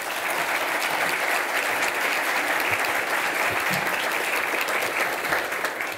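An audience applauding, dying away near the end.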